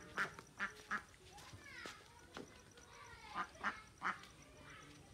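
Domestic ducks quacking: a run of short quacks at the start and another past halfway, with a few higher falling calls between them.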